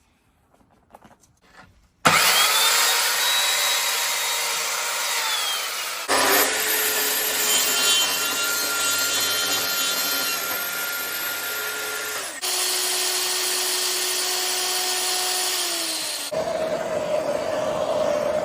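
Power tools running in four spells, each starting abruptly after a short quiet opening, with a motor whine that drops in pitch as each winds down.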